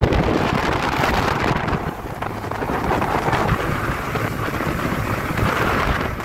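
Wind buffeting the microphone on a bass boat running at speed, over the rush of water and spray and the 250-horsepower outboard motor.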